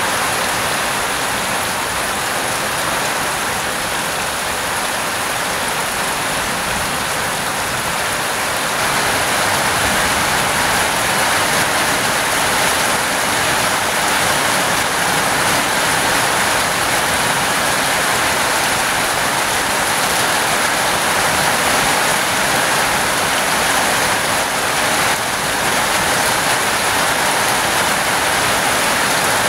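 Heavy rain pouring steadily, a dense even hiss; about nine seconds in it grows slightly louder.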